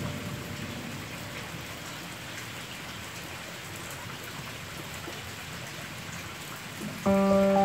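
Steady rain falling on wet ground, an even hiss. A music track comes in loudly about seven seconds in.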